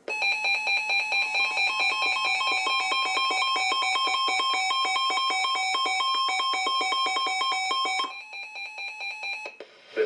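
Several NOAA weather radios going off at once: rapid pulsing beeps layered with steady alert tones, set off by a tornado warning. Most of it cuts off about eight seconds in, leaving fainter beeping for about another second and a half.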